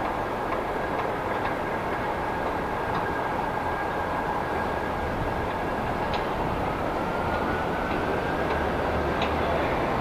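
New York City subway train running on a steel elevated structure, a continuous rumble with faint clicks of wheels over rail joints. A steady high whine holds through most of it, and a second whine rises in pitch over the last few seconds.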